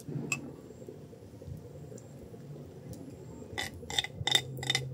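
An eating utensil clinking and scraping against a clay rice pot and ceramic bowl, in a quick run of sharp knocks starting about three and a half seconds in, after a faint single click near the start.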